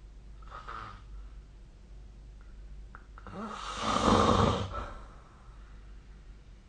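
A sleeping person snoring: a faint breath about half a second in, then one loud snore from about three to five seconds in.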